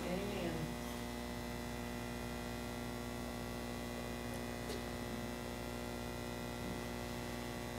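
Steady electrical mains hum with a light hiss, unchanging throughout.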